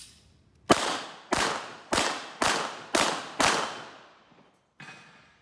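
Handgun shots: six in quick succession about half a second apart, each with a short echoing tail, then a fainter bang near the end.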